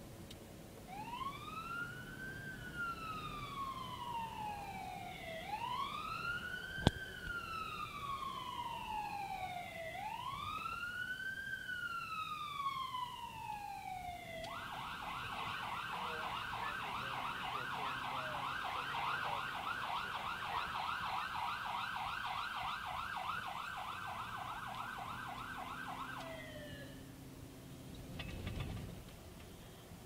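Emergency vehicle electronic siren heard from inside a moving car. It runs a slow wail for three rising-and-falling cycles, then switches to a fast yelp about halfway through and winds down a few seconds before the end.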